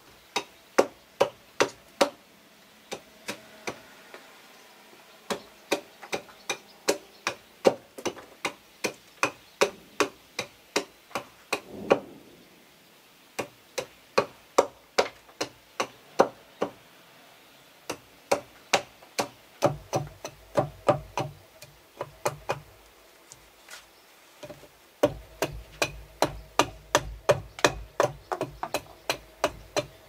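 Hammering: repeated sharp blows, about two to three a second, each with a short ring, in runs broken by short pauses.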